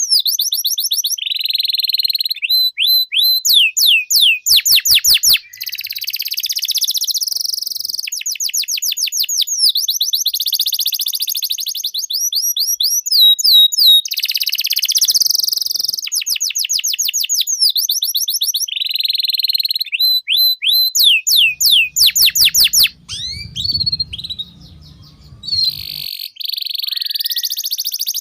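Domestic canary singing a long unbroken song of fast repeated high notes and rolling buzzy trills, switching to a new phrase every second or two. A faint low hum comes in briefly during a quieter spell near the end.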